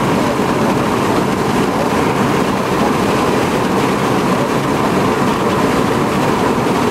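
Strong wind buffeting the microphone: a steady, loud rushing noise with no breaks.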